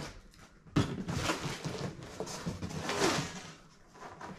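Large cardboard box being lifted and tilted up on a table: a knock about a second in, then cardboard scraping and rustling for a couple of seconds before it settles.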